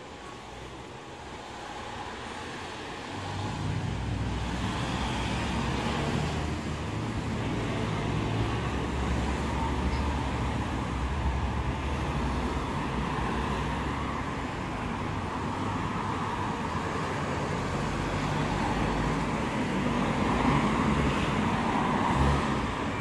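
Street traffic: a steady rumble and hiss of passing cars that grows louder about three seconds in. It peaks near the end as a car drives past close by.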